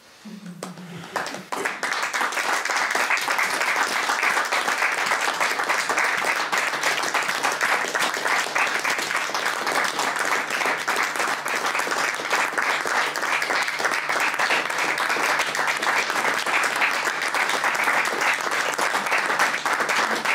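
Audience applauding: dense, steady clapping that swells up over the first couple of seconds and then holds.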